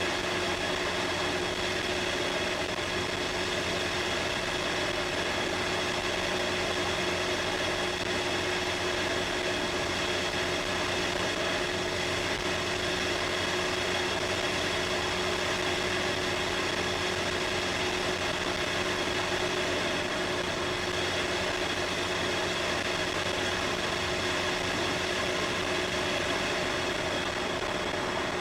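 Turbocharged Mini Cooper engine running steadily at constant revs, heard from inside the cabin, its pitch holding level throughout with no revving.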